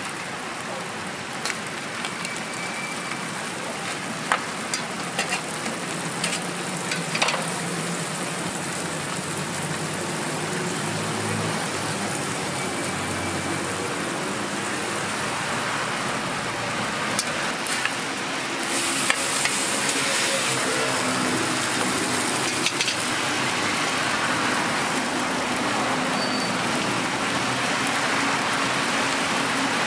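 Egg, corn and shredded cheese sizzling on a hot flat-top griddle: a steady frying hiss with a few light clicks, growing louder about two-thirds of the way through.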